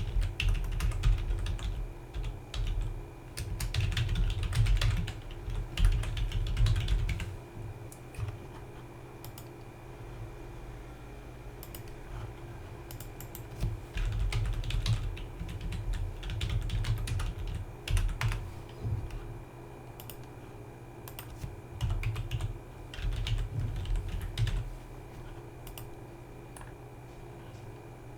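Typing on a computer keyboard in bursts of key clicks with dull thumps under them, broken by pauses of a few seconds, over a faint steady hum.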